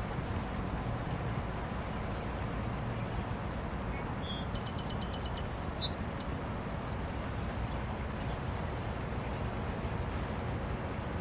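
Steady low outdoor rumble, with a bird's quick series of about eight high chirps about halfway through.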